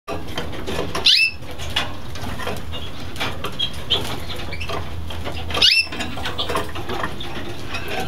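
Red factor canaries chirping and calling in their cages, a busy run of short high chirps with two louder rising calls, about a second in and near six seconds, over a steady low hum.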